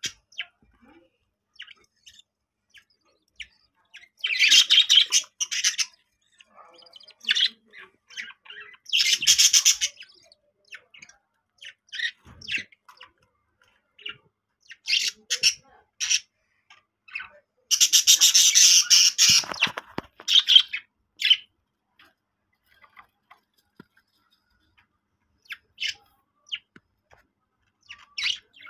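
Budgerigar chicks giving scratchy, high-pitched squawks in irregular bursts with quiet gaps between, the longest burst lasting about a second and a half about two-thirds of the way through.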